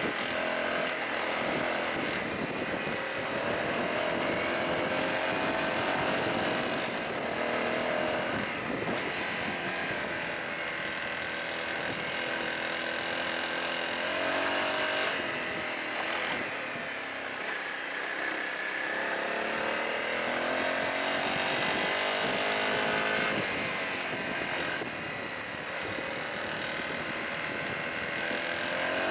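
Honda CRF250L's single-cylinder four-stroke engine running under way, its revs rising and falling several times with the throttle, over a steady rush of wind and tyre noise.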